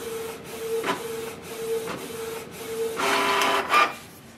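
Canon PIXMA TS3700 inkjet printer printing a nozzle check sheet: the print-head carriage motor whirs in a repeating pulse about twice a second with light clicks. About three seconds in a louder burst of whirring follows as the printed sheet is fed out.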